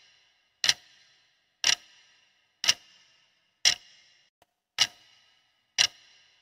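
Countdown-timer clock-tick sound effect: one sharp tick about every second, six in all, each with a brief high ringing decay, marking the time allowed to answer a quiz question.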